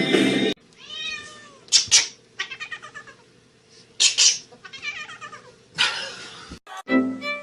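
A cat meowing and yowling in several drawn-out calls that rise and fall in pitch, with a few short, harsh, noisy bursts between them. Music plays briefly at the start and comes back near the end.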